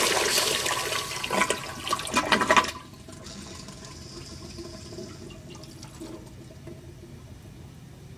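American Standard Afwall wall-hung toilet finishing a flush: the rush of water through the bowl tapers off with loud gurgles from the drain, then cuts off sharply just under three seconds in. A much fainter hiss and trickle follows as the bowl settles and refills.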